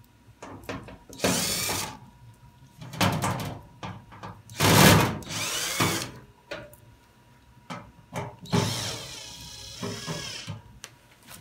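A cordless drill/driver backs screws out of a washing machine's sheet-metal rear cover. The motor whirs in four short runs, its pitch rising and falling in each, with small clicks of the bit and screws between the runs.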